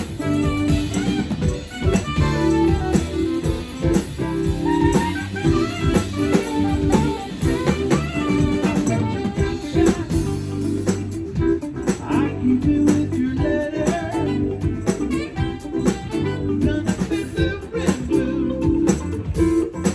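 A live band playing soft rock with a prominent guitar over a steady bass line.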